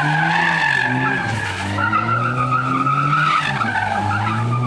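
Small hatchback racing car driven hard through a slalom, its engine pitch dropping about a second in and then climbing steadily, while its tyres squeal continuously through the turns.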